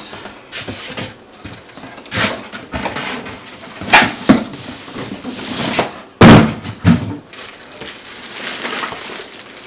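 Cardboard box and styrofoam packing being handled and moved: rustling and scraping with several knocks and thumps, the loudest a little after six seconds in.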